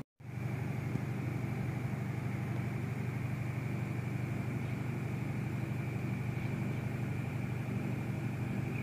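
A steady, unchanging engine drone, low-pitched with a faint high whine over it, starting after a brief dropout.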